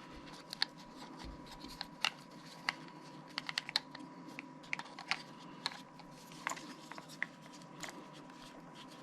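Irregular small clicks and taps of Shure AONIC 215 true wireless earbuds being handled and fitted into their charging case. A faint steady tone runs underneath.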